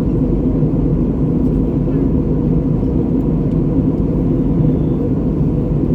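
Steady low drone of an Airbus A319's cabin on approach to landing: jet engine and airflow noise heard from a window seat inside the cabin.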